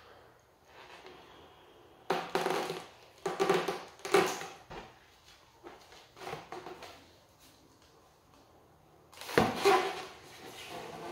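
Large black latex balloon being blown up by mouth: loud, airy breaths and blows into the balloon, three close together a couple of seconds in, then a pause and another near the end.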